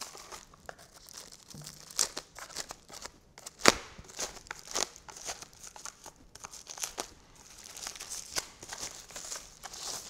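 Packaging being handled and unwrapped: crinkling and rustling with scattered sharp clicks and taps, the loudest a little under four seconds in.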